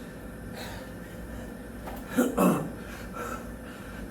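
Short, throaty vocal grunt from an out-of-breath man about two seconds in, falling in pitch, over a steady low background hum.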